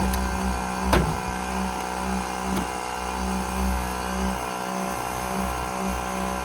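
Bauer 1.6-gallon cordless brushless air compressor running steadily as it pumps up its tank, the pressure nearing 120 psi. A single sharp knock comes about a second in.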